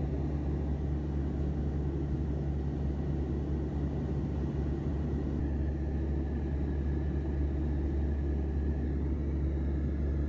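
Aircraft engine drone heard inside the cabin: a steady low hum with engine tones and no change in pace.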